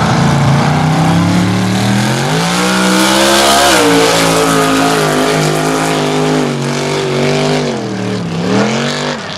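Mud bog truck's engine revving hard at full throttle. Its pitch climbs about two seconds in and holds high with a brief dip. It falls away near the end, then climbs again.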